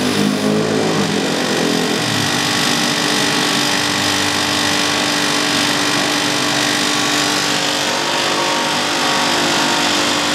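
Refrigerant gas hissing through the opened manifold gauge valve and charging hose into a running air-conditioner compressor, a loud steady hiss that swells about half a second in, over a steady hum.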